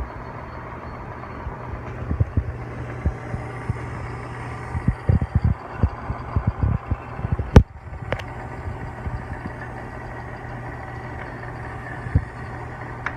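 Hardinge HLV-H toolroom lathe running with a steady mechanical hum, with scattered low knocks and two sharp clicks a little past halfway.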